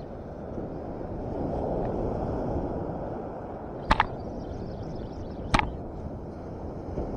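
Steady rushing noise of surf and wind on a beach, swelling a second or two in. Two sharp clicks cut through it near the middle: a quick double click, then a single one about a second and a half later.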